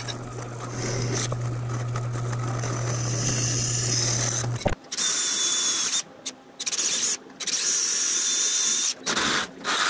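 A bench drill press runs with a steady motor hum while its bit cuts through aluminum angle. About five seconds in it cuts off, and a DeWalt cordless drill runs in several short runs with brief pauses between them, drilling into the car's steel frame rail.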